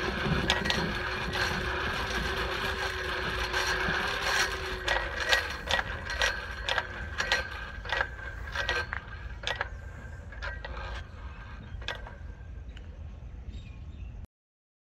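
Hand-cranked Alldays British Alcosa F55½ cast-iron forge blower spinning: a steady whir of its gears and fan while cranked, then coasting down after the crank is let go, with ticks that come slower and slower as it fades.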